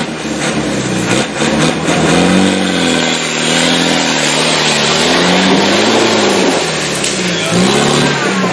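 Land Rover Defender 90's engine revving hard off-road, its pitch rising and falling again and again as the driver works the throttle, with the wheels churning through deep mud.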